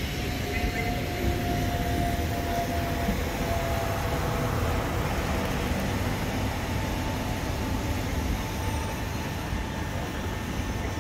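Southeastern Class 375 Electrostar electric multiple unit moving slowly past along the platform: a steady low hum with a faint electric whine that glides slightly in pitch.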